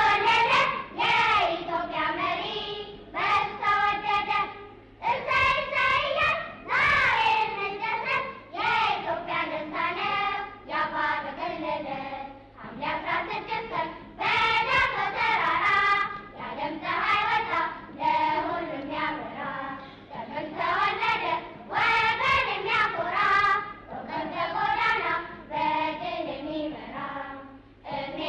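Children singing together, a song in short phrases of a second or two with brief breaths between them.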